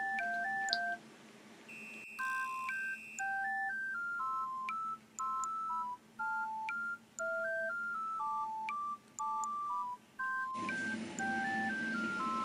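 Background music: a simple electronic melody played in pure beeping tones, two notes at a time, stepping through short notes with brief breaks.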